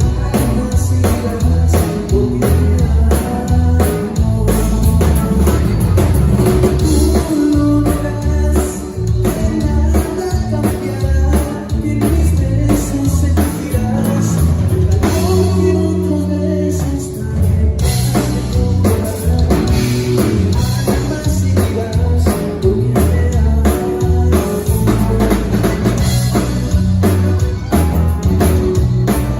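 Rock band playing a song live at a sound check: drum kit, bass and guitar with a singing voice, the drums dropping back briefly about halfway through.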